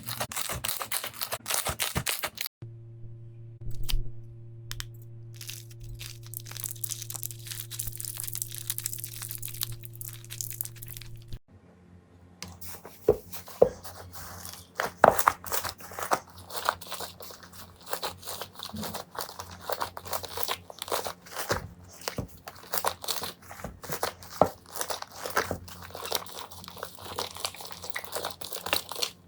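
Slime being squeezed, pressed and stretched by hand, giving a dense run of small crackles, pops and squelchy clicks. Cuts come about 2.5 and 11.5 seconds in. The middle stretch is softer, with a steady low hum under it.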